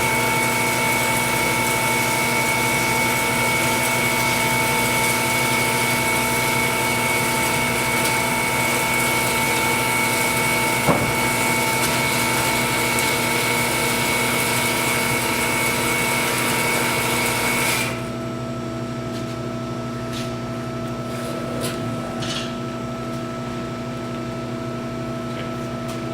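Bomar 320-250DG horizontal metal-cutting band saw running with a steady hum, whine and hiss, and a single sharp click about halfway through. About two-thirds of the way in, the higher whine and hiss stop abruptly, leaving a quieter steady hum.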